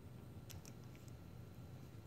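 Near silence: a low room hum with two faint short ticks about half a second in.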